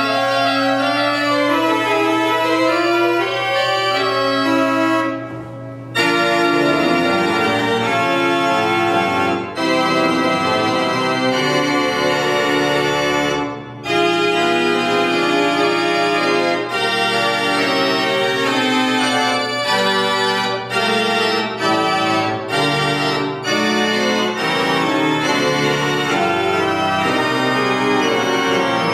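Church pipe organ playing full sustained chords over a steady low bass note. There are two short breaks between phrases, about five seconds in and again near the middle, each followed by the chords coming back in at full volume.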